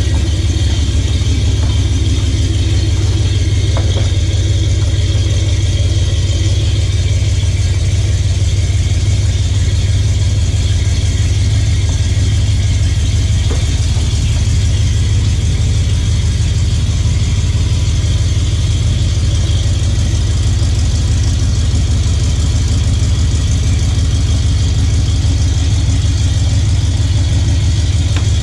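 1979 Ford F-250 pickup's engine running at a steady speed, a constant low drone with a steady hiss over it and no change in revs.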